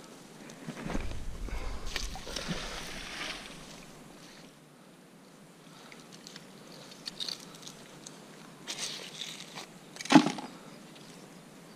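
Rustling and handling as a magnet-fishing rope and neodymium magnet are hauled up through bank grass. Later come scraping and clicks as rusty debris is scraped off the magnet with a blade, with one sharp knock about ten seconds in.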